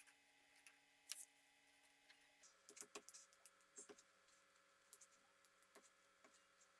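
Faint scattered taps and short scratches of a pen writing on paper, irregular strokes with a slightly longer one about a second in, over a steady faint electrical hum.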